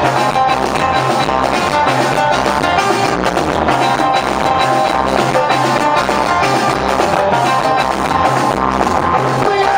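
Live Moroccan chaabi band music: drum kit beating a steady, fast rhythm under sustained electronic keyboard notes.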